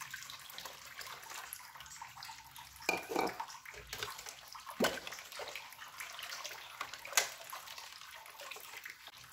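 Water pouring from a plastic measuring jug into a steel pot of chocolate milk mixture, a steady splash for about the first three seconds. After that come a few knocks and the sloshing of a spatula stirring the liquid in the pot.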